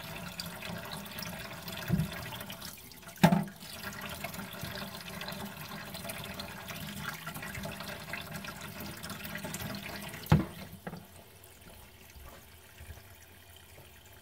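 Kitchen tap running into a stainless steel sink as chopped tripe is rinsed under the stream by hand, with three short knocks against the sink, the loudest about three seconds in. The water sound drops lower about eleven seconds in.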